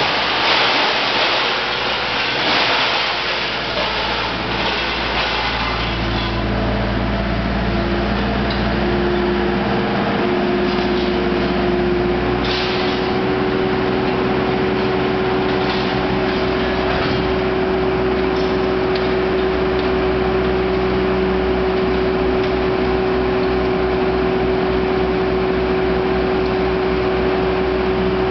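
Mac 1850 scrap baler's hydraulic drive running under load as it compresses aluminium door-frame extrusions. It starts with a noisy clatter and a few knocks, then settles into a steady hydraulic whine that steps up in pitch about eight to ten seconds in and holds over a low hum.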